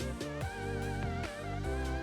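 Background music: a steady beat with bass and a wavering lead melody.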